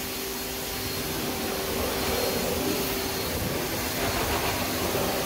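Steady drone of car-wash machinery running, with a thin steady hum underneath that drops away about three seconds in.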